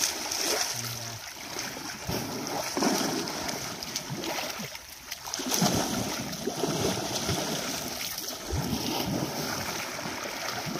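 Muddy pond water sloshing and splashing as elephants wade and roll through it, swelling and easing unevenly, with a brief lull about five seconds in.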